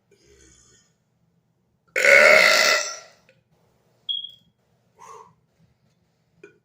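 A man's loud forced burp, about a second long and starting about two seconds in, pushed up from the stomach on command with no drink to help it.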